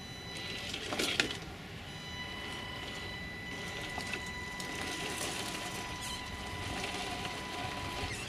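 Electric drive of an HB Toys R1013 RC rock crawler giving a steady, high, constant-pitch whine as it creeps slowly up a concrete block step, with a couple of sharp knocks about a second in. The whine stops just before the end.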